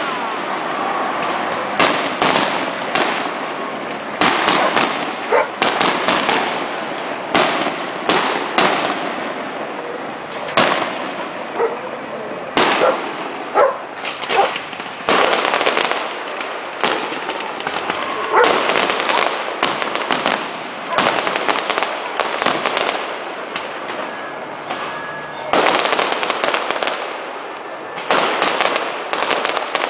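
Fireworks and firecrackers going off in quick succession: dozens of sharp bangs with crackling between them, packed closely together, with a few short lulls.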